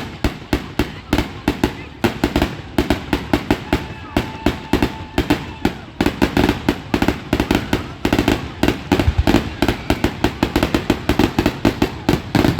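Aerial fireworks going off in a rapid barrage of loud bangs, several a second with hardly a pause.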